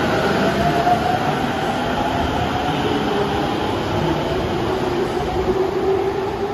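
Subway train moving along an underground station platform: a steady, loud rumble of wheels on rail, with a whining tone that shifts in pitch.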